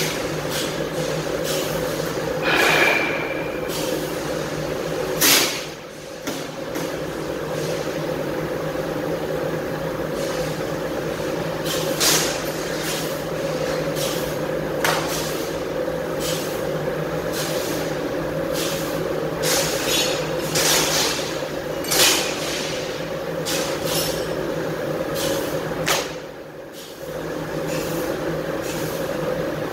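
Steady hum of a Mitsubishi fiber laser cutting machine running, with sharp clanks and clinks of cut sheet-metal pieces being handled every few seconds. The hum drops briefly twice, about six seconds in and near the end.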